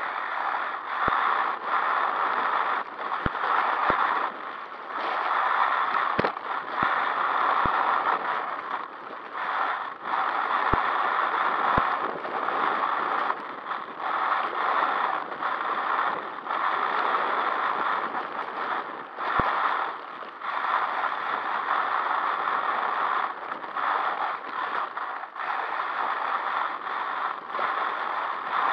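Onboard sound of an HPI WR8 Flux brushless electric 1/8 rally car driving fast over gravel: a steady rushing crunch of tyres on loose stones, mixed with drivetrain noise, that swells and dips every second or two as the throttle goes on and off.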